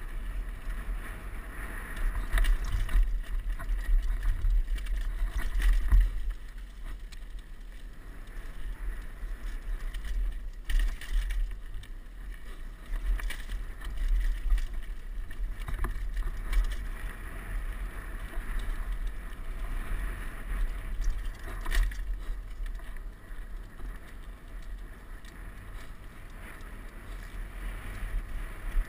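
Wind buffeting the microphone of a helmet-mounted GoPro with a steady low rumble, over the rattle of a Giant Glory downhill mountain bike's tyres and frame riding a rocky dirt trail, with occasional sharp knocks as it hits rocks and bumps.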